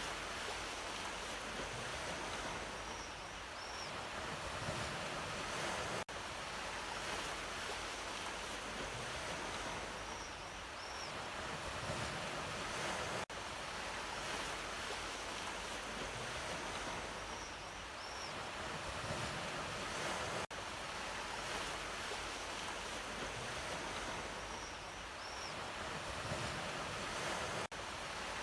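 Ocean waves washing in and out on a shore, a steady hiss of surf that swells and eases. The sound dips briefly about every seven seconds, as the same stretch repeats.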